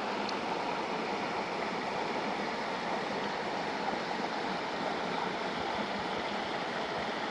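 Mountain stream water rushing over rocks: a steady, even rush.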